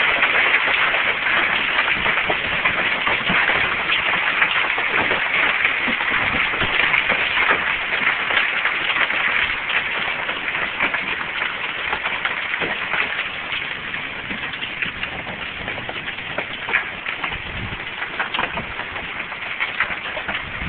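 Hailstones falling and striking surfaces: a dense, continuous clatter of many small impacts that slowly grows quieter.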